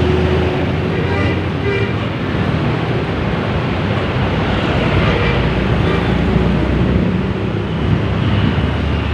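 Steady road traffic noise: vehicle engines and tyres on the road, with a low rumble throughout.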